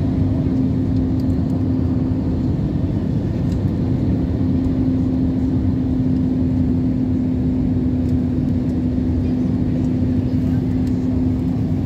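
Steady cabin noise inside a jet airliner on approach with flaps extended: engine and airflow rush with a steady low hum.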